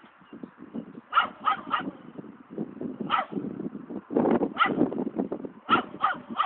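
A dog barking repeatedly, about eight short barks, some single and some in quick runs of two or three. A low rumbling noise sits beneath and between the barks.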